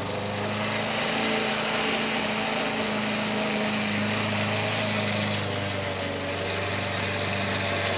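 Petrol lawn mower engine running steadily while it is being worked on.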